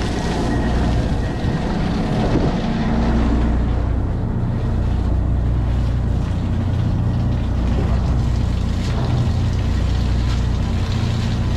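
A fishing boat's engine running steadily, a low even drone with wind and water noise over it.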